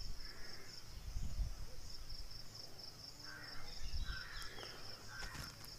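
Faint background: a steady, high, finely pulsing trill like insects chirring, with a few faint short calls over it.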